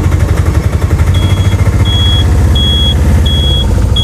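Motor vehicle engine running with a steady low rumble, and from about a second in a high electronic beep repeating about every 0.7 s, each beep short and even.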